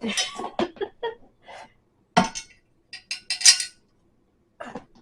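Small metal assembly hardware (screws and fasteners) clinking and rattling as it is picked up and handled. It comes as a run of short clinks, with the loudest cluster about three and a half seconds in.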